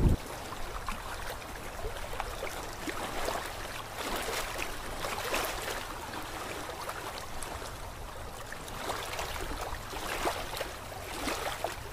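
Steady sound of sea water, gentle sloshing with many small splashes.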